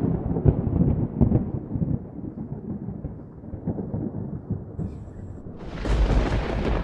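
Thunder rolling and crackling, fading over several seconds. Near the end a louder, steady hissing storm noise sets in.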